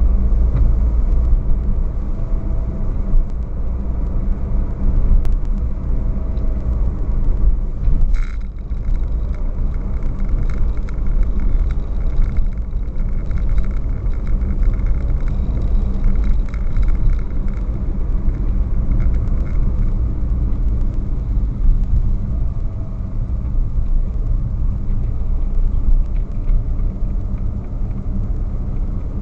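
Car cabin noise picked up by a dashcam's built-in microphone while driving: a steady low rumble of engine and tyres on the road, with a few faint ticks.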